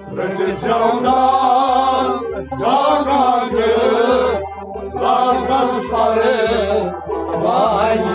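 Kashmiri song sung by a singer with instrumental accompaniment, over a steady drum beat of about two strokes a second.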